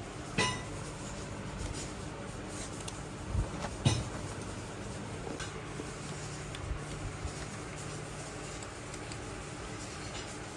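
A few light metallic clinks and knocks of tools or engine parts being handled, over a steady low hum. The loudest are two knocks about three and a half to four seconds in.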